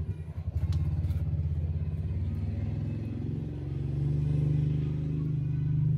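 A steady low engine rumble, growing a little louder about four seconds in, with a few faint clicks about a second in.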